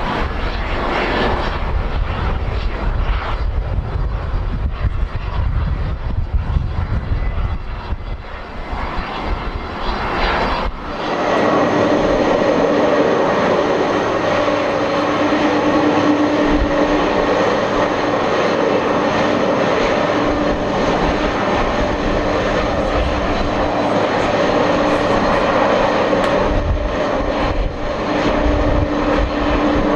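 Boeing 767-300ER's turbofan engines running at idle: a steady hum and whine that holds at one pitch. For roughly the first ten seconds it is mixed with low wind rumble on the microphone.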